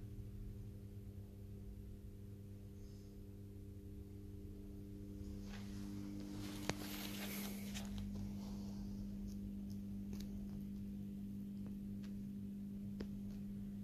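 Steady low electrical hum of room tone, with a sharp click and a brief rustle about seven seconds in.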